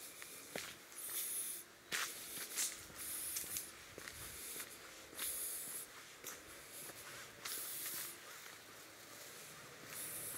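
Footsteps scuffing and crunching on a dirt path scattered with dry leaves, with short hissy crunches coming irregularly, about one every second or two.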